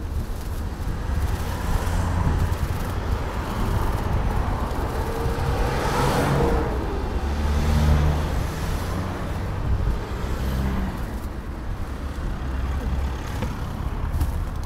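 Road traffic on a city street, with one motor vehicle passing close by about halfway through, its sound swelling and then fading, over a steady low rumble.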